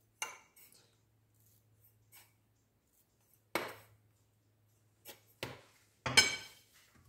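A few separate clinks and knocks of kitchenware: a utensil or measuring cup tapped against glass bowls and the counter. The loudest comes near the end and rings briefly like struck glass.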